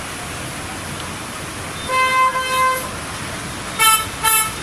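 Vehicle horns honking: one held honk of about a second, about two seconds in, then two short toots near the end, over a steady background hiss.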